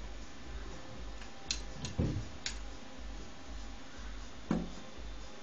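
A few sharp clicks and two duller knocks, about a second in and again near the end: hand handling at a Sony PS-X7 turntable, over a low steady hum.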